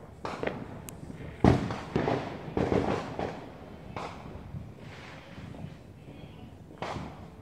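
Fireworks going off: a series of sharp bangs, each dying away briefly. The loudest comes about a second and a half in, a cluster follows over the next second and a half, and a single bang comes near the end.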